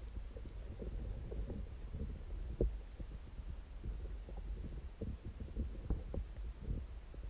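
Muffled underwater sound picked up by an action camera in its waterproof housing: a low rumble with irregular soft knocks, the loudest about two and a half seconds in.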